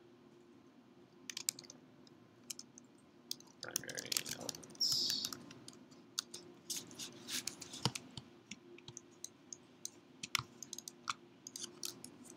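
Typing on a computer keyboard: scattered, uneven keystroke clicks as label text is typed, over a faint steady hum.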